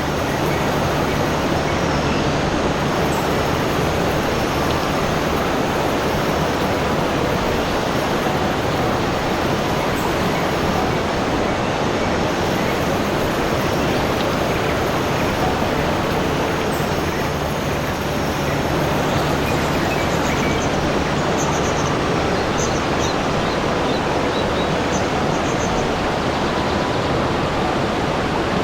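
Steady, even rush of flowing water, with faint high chirps over it in the second half.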